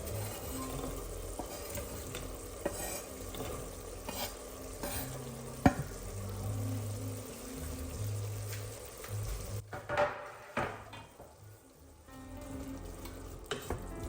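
Food sizzling in a frying pan as it is stirred, with scattered knocks of the utensil on the pan, one sharp one about five and a half seconds in. The sizzle breaks off for a moment about two-thirds through, with a few clattering knocks, then resumes. Soft piano music plays underneath.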